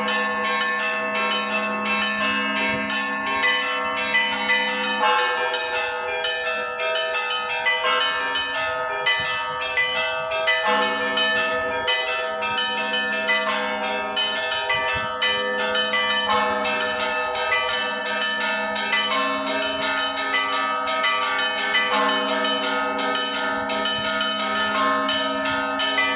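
Church bells ringing without pause: rapid strokes of smaller bells over the lingering hum of larger, lower bells.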